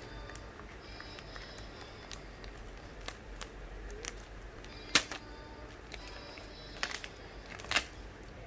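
Box cutter blade slitting a clear plastic bag: faint plastic rustling broken by a few sharp clicks, the loudest about five seconds in and another near the end.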